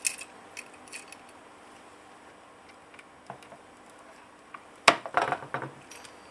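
A few small clicks of hard computer parts being handled, then, about five seconds in, a short loud clatter of plastic and metal pieces knocking together.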